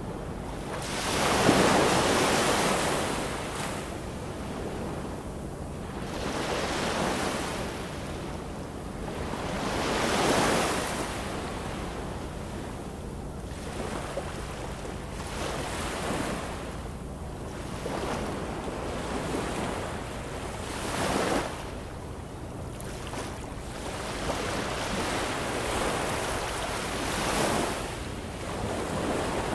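Ocean waves washing in: a continuous rush that swells and fades every few seconds, the loudest swell about two seconds in.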